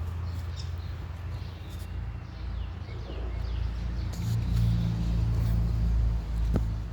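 Low engine rumble of a motor vehicle, growing louder about four seconds in and easing near the end, with small birds chirping now and then.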